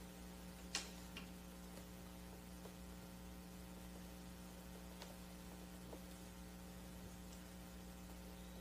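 Quiet room tone with a steady electrical mains hum in the recording, and one small click a little under a second in.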